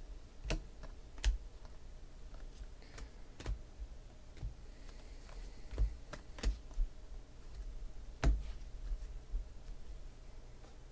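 Panini Prizm football cards being sorted by hand: the stiff chromium cards click and snap against each other in irregular sharp ticks, a few of them louder, with small knocks of handling.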